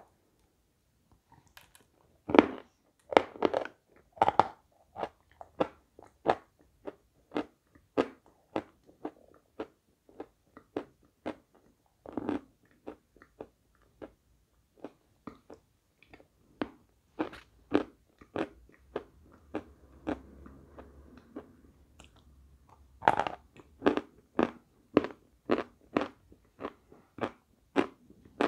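Pieces of lump chalk bitten and crunched between the teeth, a sharp crunch every second or so. The crunching is denser and louder about two seconds in and again near the end.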